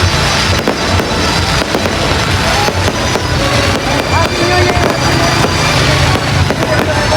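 Fireworks going off in rapid succession: a continuous barrage of crackling and low booms, with no gap.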